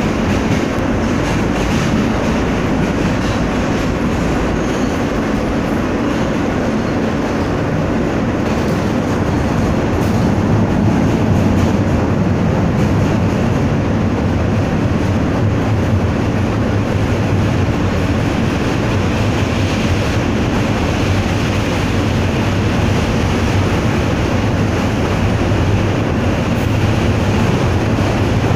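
Subway train in motion heard from inside the car: a steady rumble of wheels on the rails, with a low hum and faint clickety-clack.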